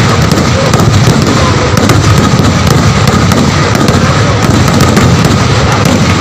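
Kerala temple-festival fireworks (vedikettu): a dense, unbroken barrage of overlapping bangs and crackles, very loud throughout.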